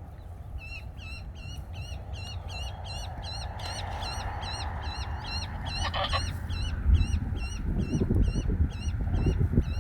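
A bird calling over and over in a long, even run of short, high-pitched calls, about three or four a second. Under it is a low rumble, with heavier bumps near the end.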